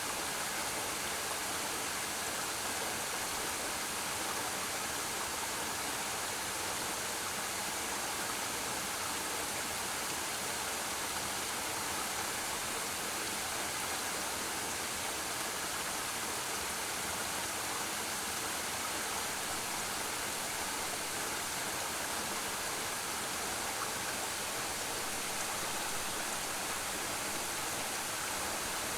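Waterfall falling into a pool: a steady, even rush of water, rich in hiss, with no change throughout.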